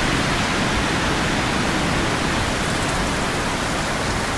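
Steady wind noise on the microphone: an even hiss over a low, uneven rumble.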